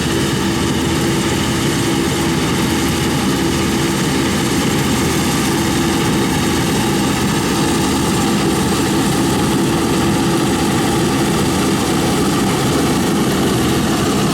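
Small Claas combine harvester running steadily. Its engine and machinery make a loud, even drone with a constant whining tone, and the sound does not change.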